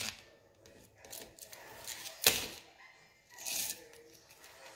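Kitchen scissors snipping and crunching through a purple sea urchin's shell on a plastic cutting board: a few sharp snaps, the loudest about two seconds in, and a short crackle a little later.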